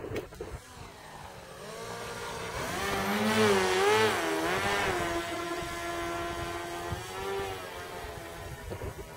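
Motor and contra-rotating propellers of an NPM Fury 3D RC aerobatic model plane flying overhead: a whine that grows louder, swoops up and down in pitch several times as the plane passes close and manoeuvres, then holds a steady pitch and fades near the end.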